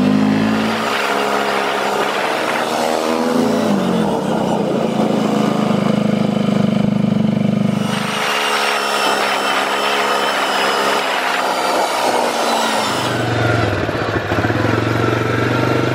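ATV engine running as it is driven along a dirt road, its pitch rising and falling several times with the throttle.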